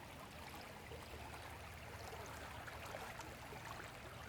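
Faint, steady running water of a small creek.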